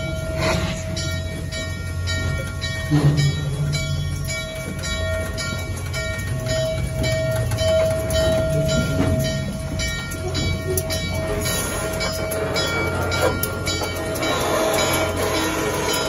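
Norfolk & Western 611, a Class J steam locomotive, heard up close: a steady whine with a regular beat about twice a second over a low rumble.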